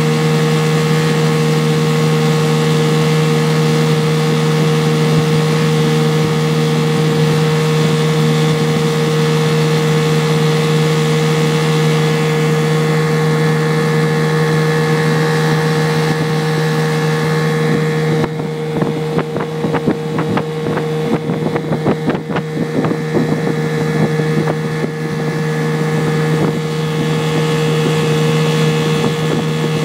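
Boat's outboard motor running steadily under way, a constant low engine note with hiss above it. For several seconds past the middle the sound turns choppy and uneven as wind buffets the microphone.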